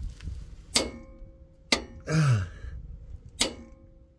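Torque wrench on the track bar nut giving three sharp metallic clicks, each with a short ring, as it is pulled to the set torque. Between the second and third clicks a man gives a short grunt of effort that drops in pitch.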